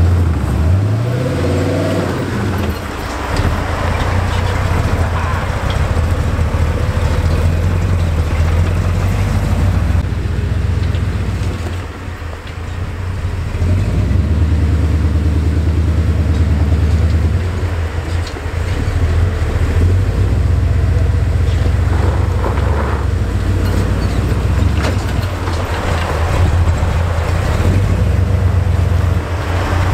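Jeep CJ-7's swapped-in 350 V8 engine running at low speed as it crawls over rough trail, revving up briefly near the start and dipping briefly about twelve seconds in.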